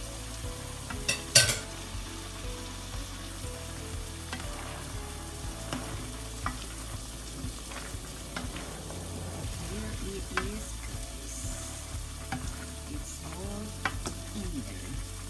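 Vegetables sizzling in a frying pan while sliced bitter melon is tipped in and the mix is stirred, with scattered clicks and knocks of the utensil and bowl against the pan; the loudest clatter comes about a second in.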